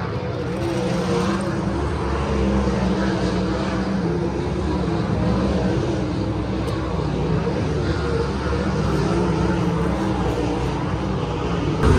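Several sprint car V8 engines racing on the dirt track, heard as a loud, continuous din whose pitch keeps rising and falling as the cars go on and off the throttle.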